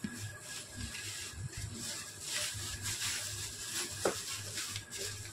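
Thin plastic bag crinkling and rustling as hands dig through loose electronic components inside it, loudest about halfway through.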